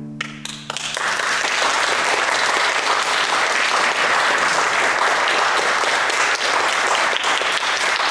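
The last cello note dies away and a few scattered claps come in. About a second in, the audience breaks into full, steady applause.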